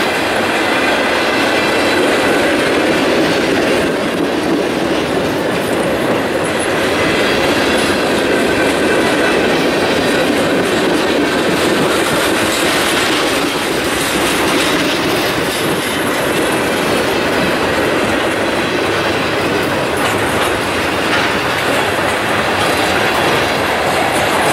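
Freight cars of a mixed train (tank cars, gondolas, boxcars) rolling past: a steady rumble and clatter of steel wheels on the rails, with thin high-pitched wheel squeal above it.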